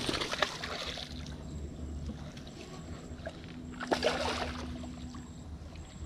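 A hooked barramundi (siakap) thrashing at the water's surface beside the boat, splashing twice: once at the start and again about four seconds in, when the landing net reaches it. A low steady hum runs underneath.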